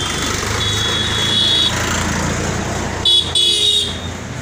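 Street traffic running steadily, with vehicle horns honking: a longer high-pitched horn early on and two short honks a little after three seconds in.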